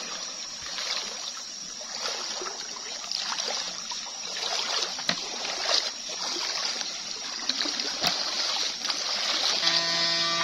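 Water splashing and churning as a person wades through a shallow river, legs pushing through the current, over the steady rush of the stream. A single sharp click comes about eight seconds in, and background music with steady tones starts near the end.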